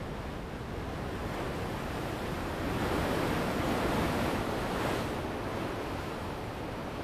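Ocean surf: a steady wash of sea noise, with a wave swelling and breaking about three seconds in and washing out again a couple of seconds later.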